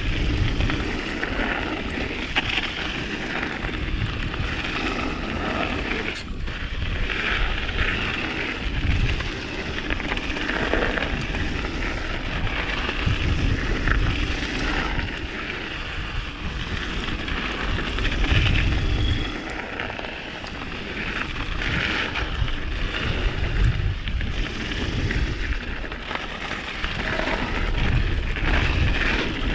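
Mountain bike rolling down a frozen trail: tyre noise and the bike rattling over bumps, with wind rushing over the chest-mounted action camera's microphone.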